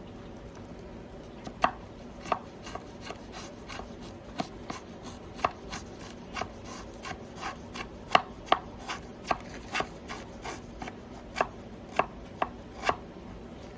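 A knife blade cutting into wood: a run of short, sharp ticks at uneven spacing, roughly two a second, with a few louder strokes.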